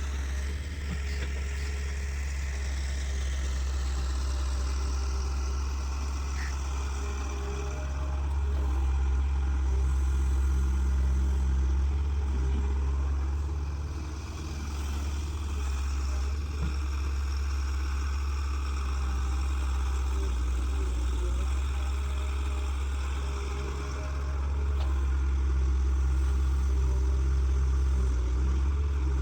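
Caterpillar hydraulic excavator's diesel engine running at working speed with a deep steady hum. It swells louder twice under load, about eight seconds in and again near the end.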